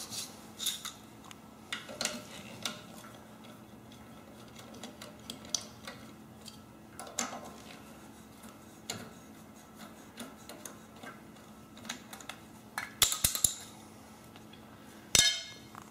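Scattered small metal clicks and clinks of hand tools working on the points cover of a Briggs & Stratton engine, as the cover comes off, with a few sharper clinks near the end.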